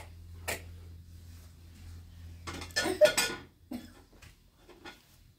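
Metal teapot and tea glasses clinking and clattering, a few scattered clinks with a busier burst of clatter about three seconds in.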